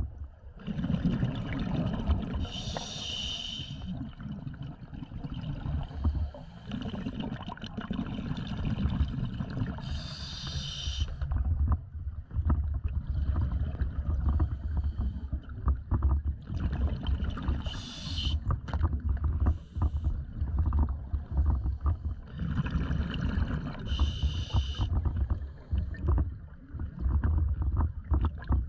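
Scuba diver breathing through a regulator, heard underwater: rumbling, bubbly exhalations alternating with short hissing inhalations, a breath every several seconds.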